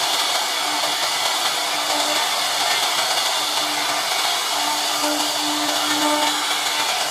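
CNC router spindle running steadily as its bit carves scrollwork into a wooden board: an even, high whir with a faint low hum that comes and goes.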